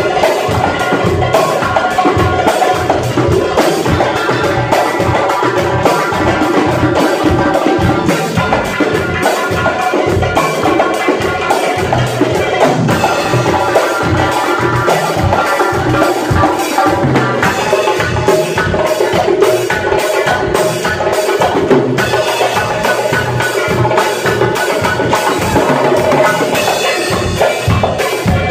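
Live Uzbek ensemble music: a doira frame drum played in a fast, dense rhythm with drum kit and keyboard accompaniment.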